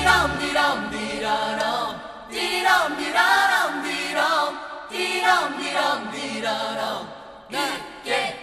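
Background music: a song with sustained, wavering singing voices and little accompaniment.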